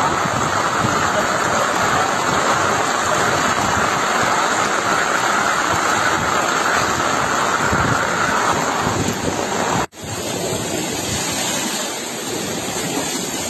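Steady hiss of heavy rain and rushing floodwater. It breaks off for an instant a little under ten seconds in, then a similar, slightly quieter water noise carries on.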